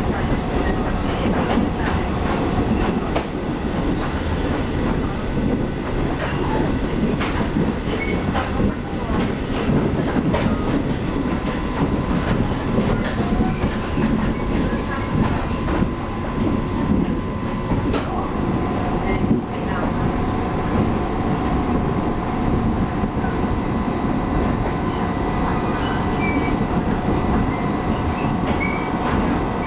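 Taiwan Railways local electric train running along the line, heard from inside the carriage: a steady rumble of wheels on rail with a few sharp clicks over the rail joints. A steady hum joins partway through.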